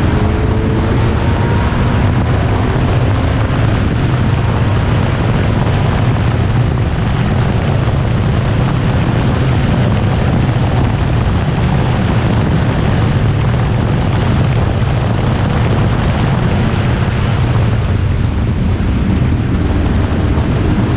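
1960s prototype racing car engines running hard on track: a loud, continuous engine noise, with a pitch that climbs near the end as a car accelerates. Wind buffets the microphone.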